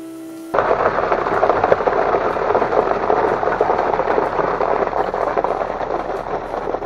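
Wet concrete with 1-inch round-rock aggregate sliding down a ready-mix truck's chute and pouring into an insulated concrete form wall: a dense, gritty, crackling rush that starts suddenly about half a second in and keeps on steadily.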